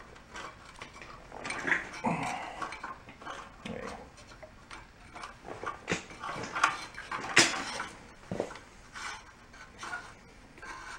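Metal clinks, taps and rattles as a small-engine carburetor is twisted by hand to work its throttle linkage free. A sharper knock comes about seven seconds in.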